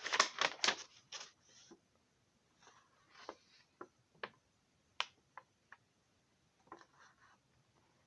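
Packaging being handled: paper and plastic rustling with scattered light clicks and ticks, busiest in the first second or so.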